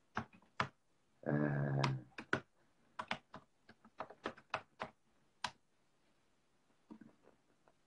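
Fingers tapping and typing on a device: a string of sharp, irregular clicks. A brief steady hum sounds a little over a second in.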